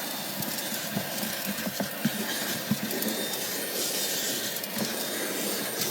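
Fanttik car vacuum cleaner running with a steady suction hiss, with scattered small clicks over it.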